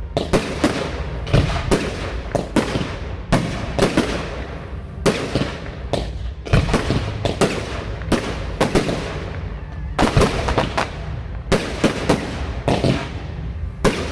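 Aerial fireworks exploding: many sharp bangs in quick, irregular succession, each trailing off in a rolling echo.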